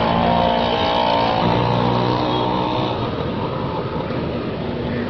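Motor vehicle engine sound effect running steadily, its pitched hum clearest in the first couple of seconds.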